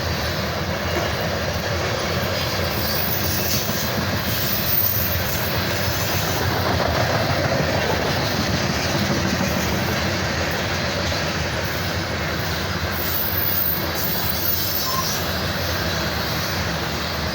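Loaded coal train rolling past: a steady rumble and clatter of steel wheels on the rails as the cars go by.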